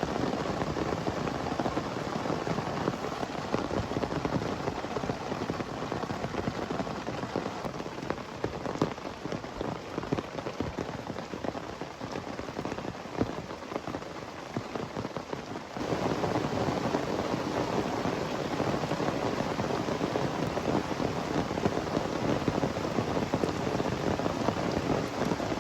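Heavy rain falling, a dense, steady patter of drops hitting a surface. It gets louder about 16 seconds in.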